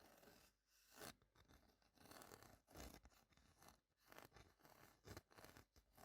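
Quiet, irregular scraping and rustling strokes of something handled by hand, with a few sharper, louder strokes among them.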